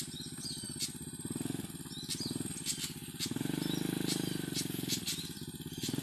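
A small engine runs steadily with a low, throbbing hum, swelling louder for a couple of seconds in the middle. Short high bird chirps and light clicks sound over it.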